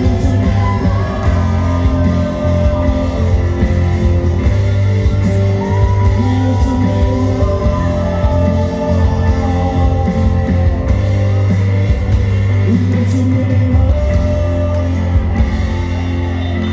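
Worship music: a band with a strong, sustained bass and singing voices.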